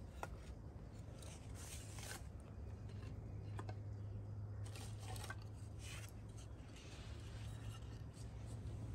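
Split sticks of wood being set against a teepee fire lay: faint, scattered knocks and scrapes of wood on wood, a few seconds apart, over a steady low hum.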